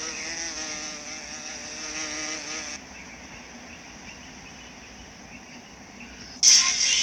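Buzzing of an insect like a fly, wavering slightly in pitch, which stops about three seconds in and leaves a faint hiss. A sudden loud, noisy sound starts near the end.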